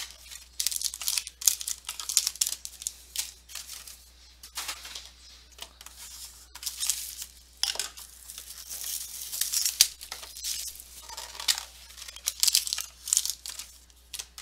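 Trading-card pack wrappers being torn open and crinkled by hand, in a run of irregular short rustles and rips.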